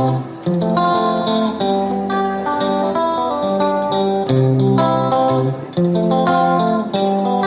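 Background music led by a plucked guitar, with notes changing about every second.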